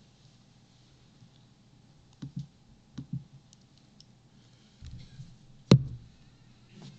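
A few soft clicks and knocks, then one sharp, much louder knock a little before the end, over faint room hum.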